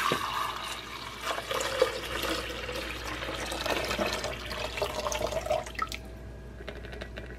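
Water poured in a steady stream into the plastic reservoir of a drip coffee maker, splashing as it fills. The pour stops about six seconds in, leaving a few light clicks.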